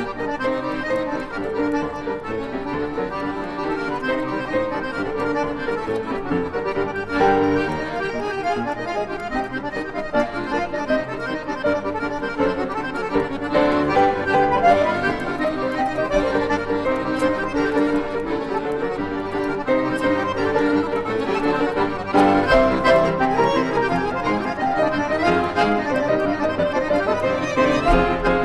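Instrumental music: an electronic keyboard plays an old song's melody in an accordion-like voice, continuously and without singing.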